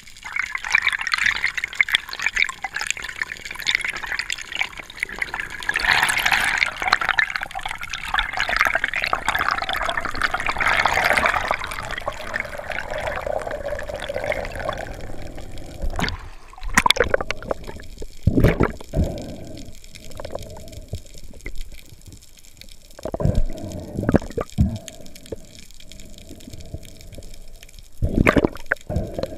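Water rushing and bubbling around a diver's underwater camera housing as the spearfisher swims up toward the surface, for about fifteen seconds. After that it quietens, broken by several short knocks and splashes.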